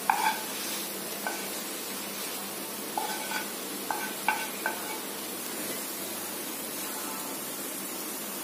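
A wooden spatula scraping and knocking against a metal frying pan as roasted mawa is pushed out onto a plate. There are a few short strokes, each with a brief ring, mostly bunched between about three and five seconds in, over a faint steady hiss.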